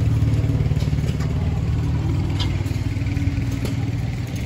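Antique Fuller and Johnson 9 HP Model K stationary gas engine running with a steady low rumble that slowly fades as it recedes.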